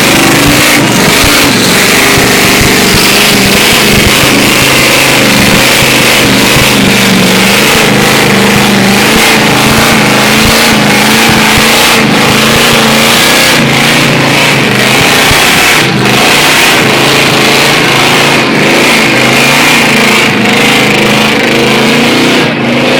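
Ford Lightning pickup's V8 held at high revs during a burnout, the pitch wavering up and down, with screeching tyres. Very loud throughout.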